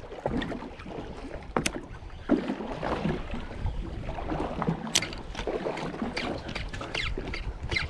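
Water lapping and slapping against a small boat's hull, with wind on the microphone and a few sharp clicks or knocks, one about a second and a half in and another about five seconds in.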